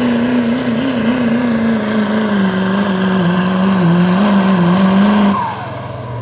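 Turbocharged diesel engine of a Chevrolet Silverado pulling truck at full throttle, dragging a weight-transfer sled. Its pitch sags partway through as the load builds. About five seconds in the throttle is chopped and the engine drops off, leaving a turbo whistle winding down.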